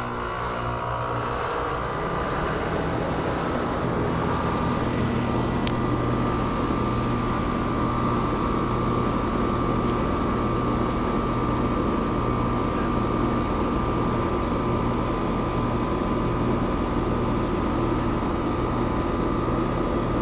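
Outdoor heat pump unit's compressor and condenser fan starting up and running steadily in heating mode, building up over the first few seconds, then a steady whine over a low hum.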